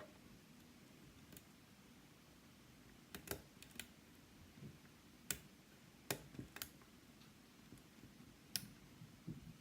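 Faint, scattered metal clicks of lock picks working inside a Yale Superior lock cylinder: a quick cluster about three seconds in, then single clicks every second or so.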